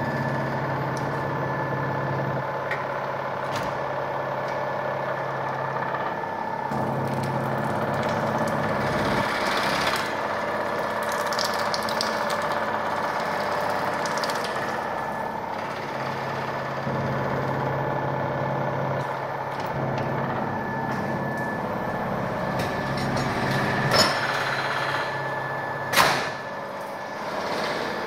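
Automatic honey extraction line running: the Boutelje honey loosener and its frame conveyor make a steady mechanical whir, with a low motor hum that comes and goes. A few sharp knocks near the end.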